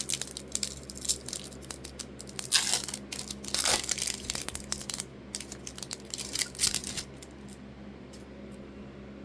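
A trading-card pack wrapper being torn open and crinkled, with cards handled: dense, irregular crackling that is busiest in the middle and dies away for the last couple of seconds.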